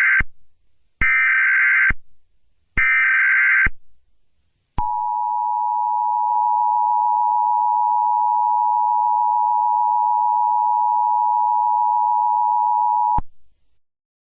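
Emergency Alert System broadcast tones. Three short screeching digital header bursts (the first already under way) are followed, after a brief pause, by the steady two-tone EAS attention signal, held for about eight seconds before it cuts off. Together they announce the start of an emergency alert message.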